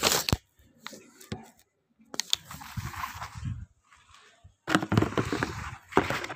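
A phone being handled close up, with fingers rubbing and knocking against it: irregular scraping rustles and sharp clicks, the busiest stretch about two-thirds of the way through.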